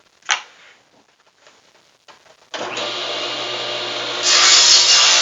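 A couple of light wooden knocks, then a table saw starts suddenly about two and a half seconds in and runs with a steady hum; about a second and a half later it gets louder and hissier as the blade cuts through a wooden pen blank pushed on the crosscut sled.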